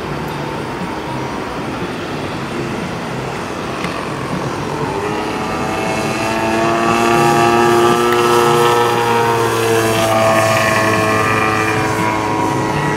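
Engine and propeller of a radio-controlled Extra 330 aerobatic plane making a low knife-edge pass. A steady drone grows louder, its pitch rises and then falls as the plane goes by, and it is loudest about eight seconds in.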